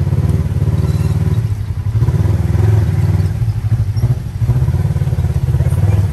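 Polaris RZR side-by-side's engine running at low speed during slow parallel-parking maneuvers, its rumble swelling and easing a few times as the throttle is given and let off.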